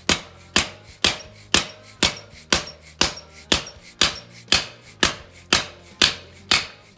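A mallet strikes a socket on an extension bar, used as a drift to drive a stubborn rear wheel axle out of a Honda CR125 dirt bike. The blows are steady, about two a second, and each has a short metallic ring.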